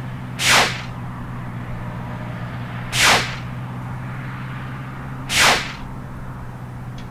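Three swoosh sound effects, each a short whoosh falling in pitch, about two and a half seconds apart, over a steady low hum.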